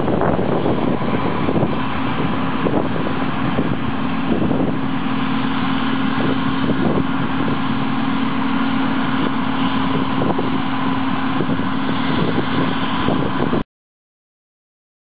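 Combine harvester running steadily while harvesting wheat, a continuous engine and machinery noise with a steady hum. It cuts off suddenly near the end.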